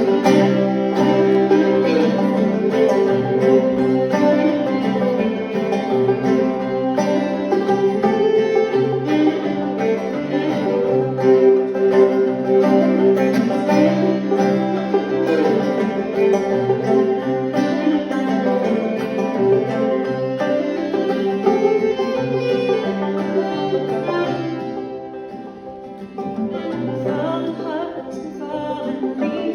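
Old-time string band playing an instrumental break on banjo and fiddle, with the playing dropping back briefly near the end before picking up again.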